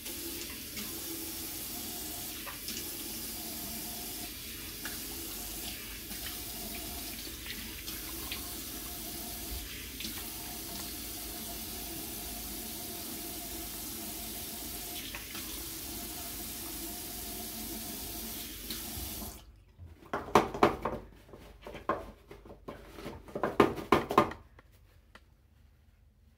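Bathroom sink tap running steadily as the face is washed under it. The tap is shut off about nineteen seconds in. A few seconds of loud, irregular rubbing and rustling follow as the face is dried with a tissue.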